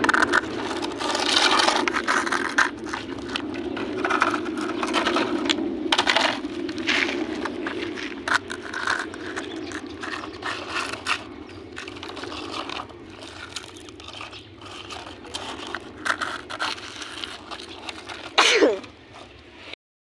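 Plastic toy vehicles being rolled and handled: a steady scraping rumble of wheels on a surface with frequent small clicks and clacks, and a brief falling squeak near the end.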